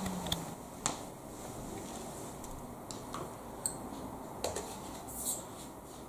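Numatic Henry vacuum cleaner's motor winding down to a stop, its falling hum dying out about half a second in. After that, quiet room tone with a scattering of light clicks and knocks.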